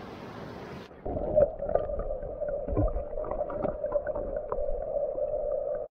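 Rushing river water hissing for about a second, then the camera goes under the surface and the sound turns muffled: a dull underwater rumble with a steady hum and scattered small clicks and knocks.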